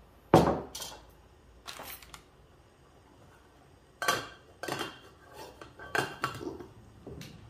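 Cookware clatter. A mug is set down on a wooden table with one sharp knock about half a second in. Then an aluminium camping-pot lid clanks as it is set on the pot and adjusted, in clusters of clanks about four and six seconds in.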